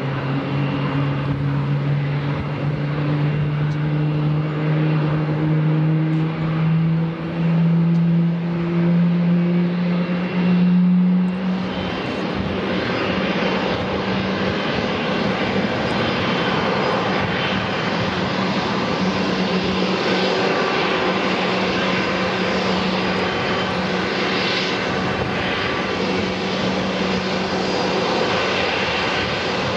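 Jet engines of taxiing airliners at taxi power. First a Boeing 777-300ER's GE90 engines give a deep hum that rises slowly in pitch. After a cut about 12 seconds in, an Airbus A321-200's engines give a steadier rushing noise with a constant hum.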